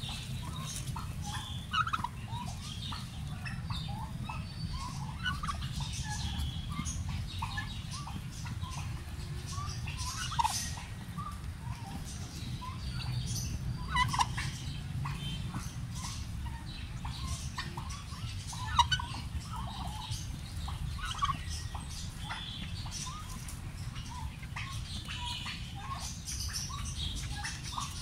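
Domestic turkeys giving many short, scattered calls while the tom treads the hen, a few of them louder, over a steady low rumble.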